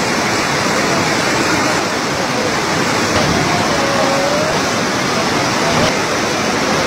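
Fast-flowing muddy floodwater rushing, a steady loud noise, with faint voices in the distance.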